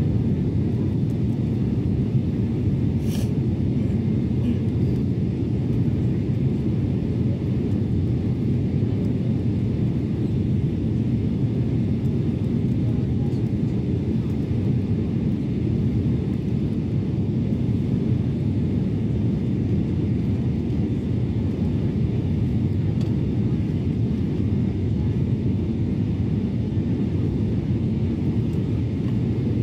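Steady low drone of an airliner's cabin in flight: engine and airflow noise heard from a window seat, even and unchanging.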